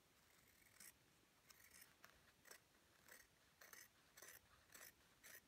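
Small sewing scissors snipping through fabric in short, faint, irregular cuts, about two a second, cutting out an appliqué piece.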